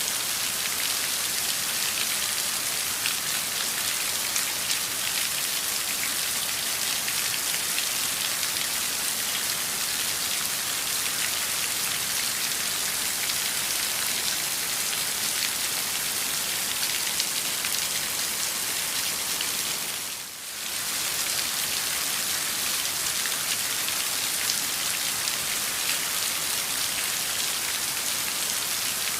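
Heavy rain downpour: a steady dense hiss of many drops striking a surface, briefly dipping about twenty seconds in.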